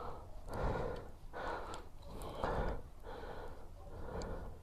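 A person's breathing, audible as soft swells in and out, with a few faint light clicks.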